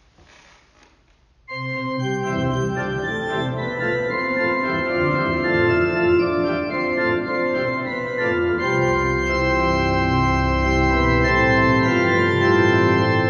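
Organ music starting about a second and a half in after a faint hiss: sustained chords, with a deep bass note held for a few seconds past the middle.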